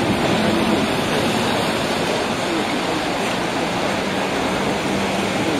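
Steady rushing noise of canal boat traffic and churned water, with the low, steady drone of a vaporetto water bus's engine as it passes below.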